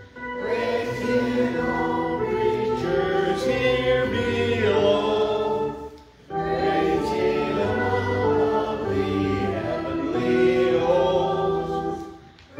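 Hymn sung by a group of voices, in two phrases of held notes about six seconds long with a short break between them.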